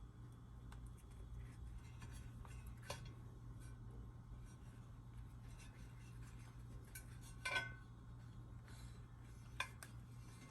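A few faint, sharp clicks and clinks of dishware being handled, spread out over several seconds, over a low steady hum.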